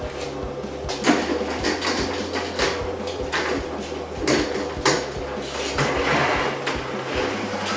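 Trolley blocks rolling on skateboard bearings along a steel Unistrut ceiling track as a hanging bike is pushed along it. There is a rolling rattle with several sharp clunks from the hook and bike, the loudest about a second in and again around four to five seconds.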